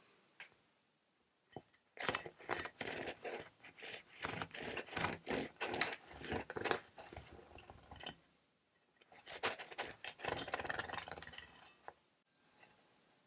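Serrated bread knife sawing through a baked milk bun's crust and crumb in quick back-and-forth strokes. It goes in two runs: about six seconds, a short pause, then about three seconds more.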